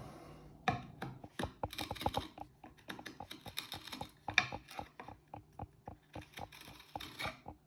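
Solognac Sika 90 fixed-blade knife cutting into something, a quick, irregular run of short clicks and scrapes.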